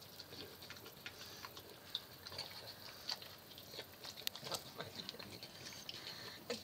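A dog licking an ice cream cone: faint, irregular clicks and smacks of its tongue and mouth.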